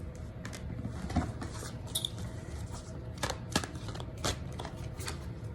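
Tarot cards being handled on a table during a reading pause: a handful of light, scattered clicks and taps over a low room hum.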